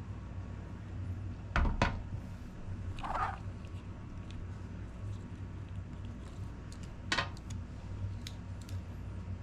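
Small plastic clicks and taps from hands working on a small RC crawler's wiring, unplugging the steering servo lead from the receiver. Two close clicks come about a second and a half in and another near seven seconds, over a steady low hum, with a short higher-pitched squeak just after three seconds.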